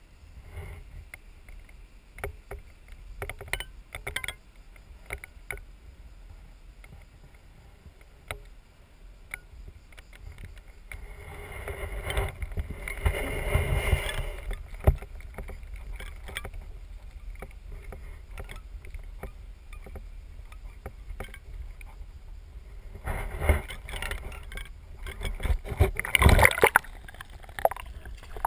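Pond water splashing and sloshing around a camera held at and below the surface, in two louder noisy stretches, the second the loudest. Scattered sharp knocks of handling run through it.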